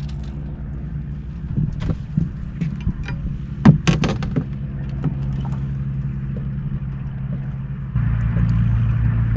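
Boat motor running steadily, with a run of knocks and clicks from handling gear in the middle, one sharp knock the loudest. About eight seconds in, the motor grows louder.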